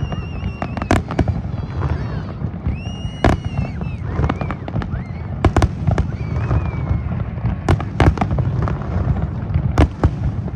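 Fireworks display: a rapid string of sharp bangs and pops, a few whistling tones that glide and level off, over a continuous low rumble.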